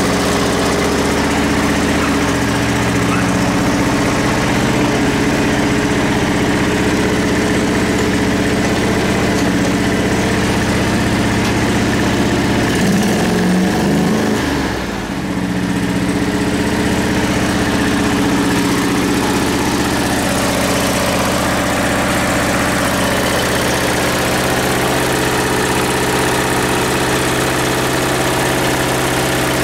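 MTD LT-185 hydrostatic lawn tractor's engine idling steadily. About halfway through, its pitch wavers and the level dips briefly before it settles back to a steady run.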